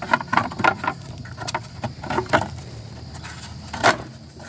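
Clicks and knocks of hands handling a 1x30 belt sander while fitting a new belt against its spring tension: a quick run of small clacks, then a louder knock near the end.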